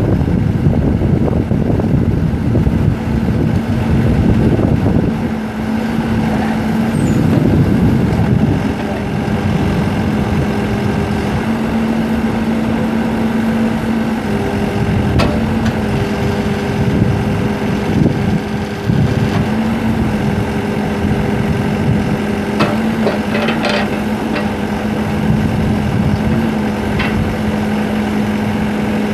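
Backhoe's Yanmar 4.4-litre four-cylinder turbo diesel running steadily, its note swelling and easing now and then, with a higher hum coming and going in the middle and a few sharp clicks or knocks near the end.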